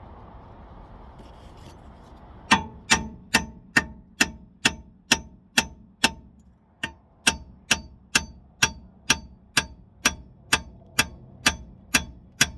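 Heavy hammer blows on steel at a car's rear wheel hub, driving at the seized wheel bearing: a steady run of loud ringing clangs, about two a second, starting a couple of seconds in, with one short pause partway.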